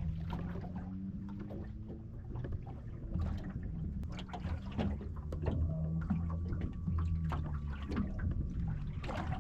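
Electric trolling motor humming at a low pitch that shifts as it works to hold the kayak in place, with small knocks and water splashing against the hull.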